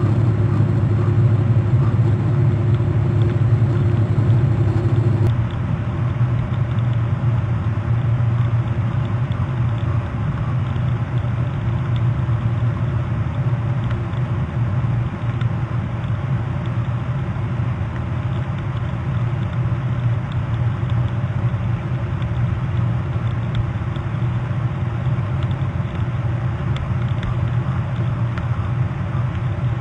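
Steady low mechanical rumble with a hum, of the kind an idling engine makes. A higher hum drops out abruptly about five seconds in.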